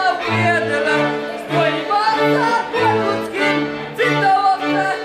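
Górale highland folk band playing a dance tune: fiddles carry a quick, ornamented melody over a low bowed bass that alternates between two notes in a steady, driving rhythm.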